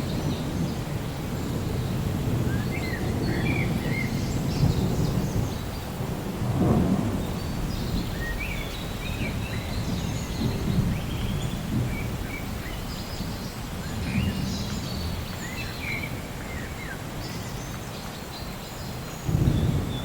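Rolling thunder rumbling low and swelling in waves over steady rain, with scattered short high chirps.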